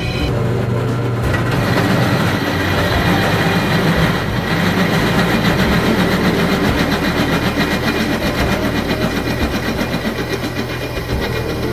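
Benchtop drill press running, its 3/8-inch bit cutting into quarter-inch steel plate lubricated with cutting oil: a steady motor hum under a rough grinding of the cut.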